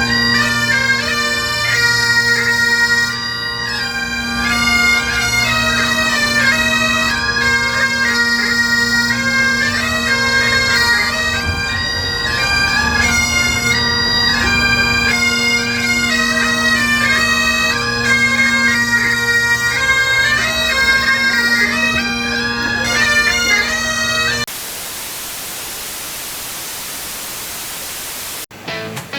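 Bagpipes playing a tune over their steady drones. The piping stops suddenly about 24 seconds in, and is followed by about four seconds of steady hiss.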